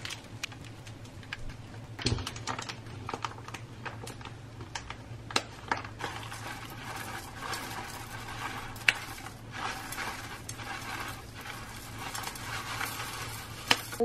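Plastic food pouches crinkling and rustling as squash salad is tipped into an enamel bowl, with scattered clicks and a knock about two seconds in. From about six seconds, cacao granola puffs pour and patter into the bowl in a dense rustle.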